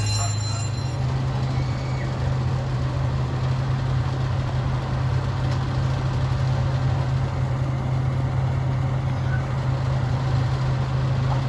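Engine of a CP Huntington miniature train locomotive running with a steady low drone, its pitch stepping up slightly about a second in.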